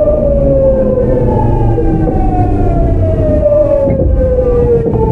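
Early Hitachi GTO-VVVF inverter and traction motors of a Tokyu 9000 series train giving a falling whine, its pitch sliding steadily down as the train slows under electric braking, over the low rumble of wheels on rail. A few sharp clicks come near the end.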